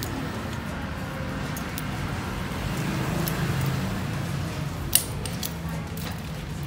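Bicycle chain running and rattling over a Shimano HG 8-speed cassette as the rear wheel is spun and the derailleur is pushed by hand to shift across the cogs, with scattered clicks and one sharp clack about five seconds in as the chain moves onto another cog. This is a test of whether the newly replaced small cog stops the chain jumping.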